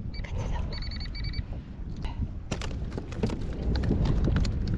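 Wind buffeting the microphone, with a quick run of high chirps in the first second or so and sharp clicks and knocks in the second half.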